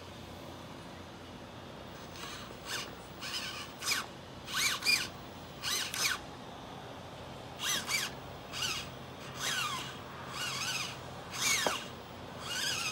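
Birds calling: about a dozen short calls that bend quickly up and down in pitch, starting about two seconds in, over a faint steady hiss.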